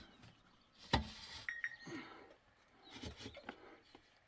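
Knocks and thuds of hand building work: one sharp knock about a second in, then several lighter knocks, with a brief high chirp among them.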